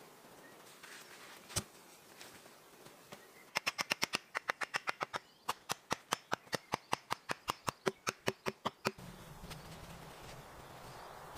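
Hatchet striking a wooden log: a single sharp knock, then about two seconds later a quick, even run of sharp wooden knocks, roughly five a second, lasting about five seconds.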